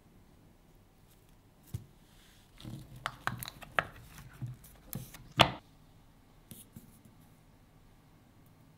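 Hands working a frozen pop out of an ice-pop mold: a run of irregular clicks, taps and rubbing from the mold, with a sharp knock about five and a half seconds in.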